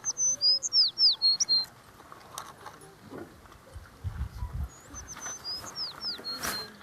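A songbird sings the same short phrase twice, about five seconds apart: a quick run of high whistled notes with downward slurs.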